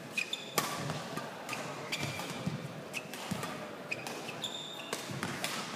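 Badminton hall sounds: about half a dozen sharp smacks, like rackets striking shuttlecocks, mixed with short high squeaks of shoes on the court mat, over a steady hall background.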